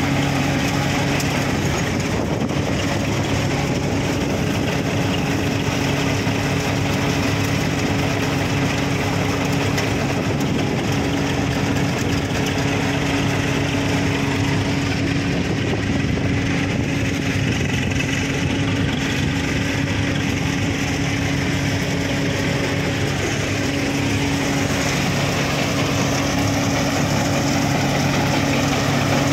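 Tractor-driven Vrundavan groundnut (peanut) thresher running steadily. A constant low engine hum runs under the machine's dense mechanical noise as it threshes vines and sieves out the pods.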